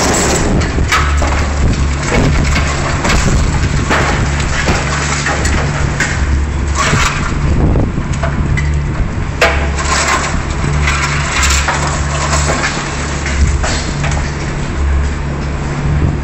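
Liebherr 944 demolition excavator's diesel engine running under hydraulic load, its low note swelling and easing, with repeated crunching and cracking of building material and steel being broken and torn by the machine.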